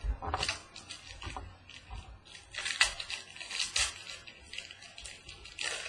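Trading cards handled by hand: an irregular run of short rustles and flicks as cards slide against each other and are flipped over.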